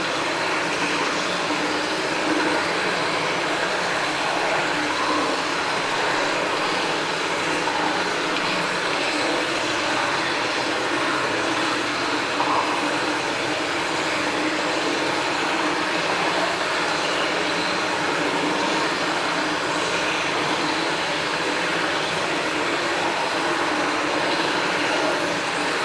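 Flowing water making a steady, even rushing sound with no breaks or changes.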